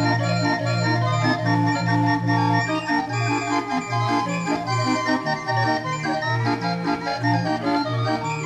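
Barrel organ playing an 'air de viole', the traditional Binche carnival dance tune. A melody of held notes runs over a regularly pulsing bass.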